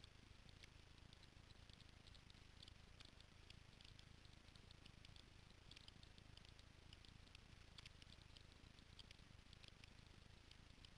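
Near silence: faint, irregular little clicks and ticks over a low steady hum.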